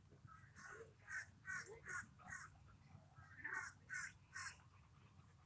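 Faint, harsh bird calls, crow-like, repeated in two runs of several calls each, a pause of about a second between the runs.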